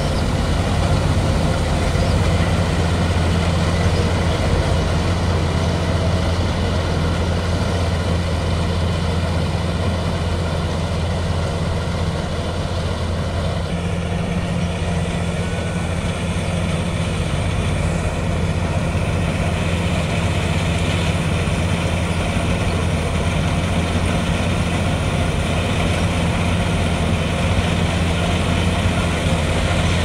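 John Deere 5405 tractor's diesel engine running steadily under load, driving a tractor-mounted combine harvester as it cuts a dry crop. The higher-pitched machine noise dims a little about halfway through.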